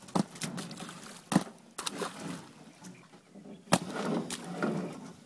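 Live fish slapping and flopping on a wet plastic tarp and being handled against a truck's metal bed: several sharp wet slaps and knocks, with splashy rustling between them.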